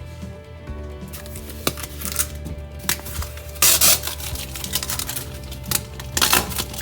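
Background music, over which packing tape is torn off a new refrigerator in several short rasps, the loudest about halfway through and near the end.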